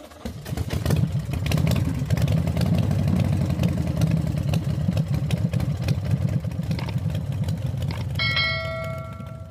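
Channel-intro sound effects: a low engine rumble that pulses rapidly, with a ringing bell ding about eight seconds in.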